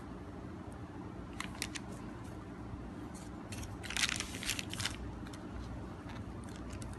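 A metal knife blade cutting through a soft baked jackfruit cake and scraping on the baking paper beneath it. There are a few short crisp scrapes about a second and a half in, and a longer, louder crunchy scraping around four to five seconds in.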